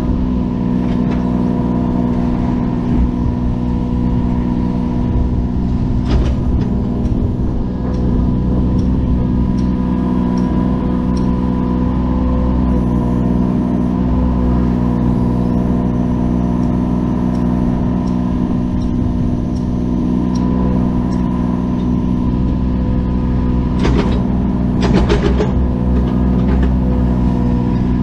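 An engine running at a steady speed the whole time, with a few short knocks or clanks about six seconds in and again near the end.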